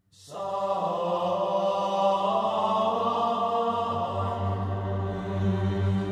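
Background music of chanting male voices in slow, held notes, monastic-chant style, over a low sustained hum; it fades in at the start.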